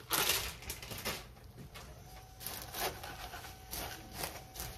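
Wooden spoon stirring crunchy fried potato sticks through a creamy codfish mixture in a pan: irregular dry crunching and rustling strokes, with a louder rustle in the first second.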